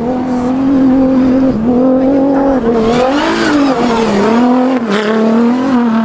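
Toyota Hilux rally-raid car racing past at speed on dirt, its engine note rising and dipping several times as the driver works the throttle and gears.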